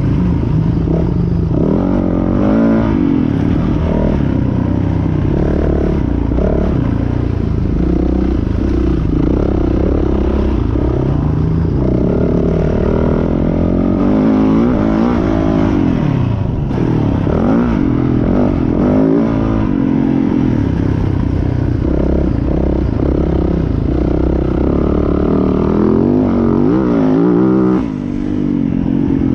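Yamaha YZ450F four-stroke single-cylinder motocross engine, heard close up on board, revving hard and falling off over and over as the bike is ridden around a dirt track, its pitch climbing and dropping with throttle and gear changes. There is a brief dip in loudness near the end.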